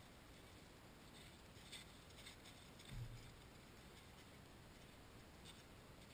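Near silence: quiet outdoor air with a few faint light ticks and one soft low bump about three seconds in.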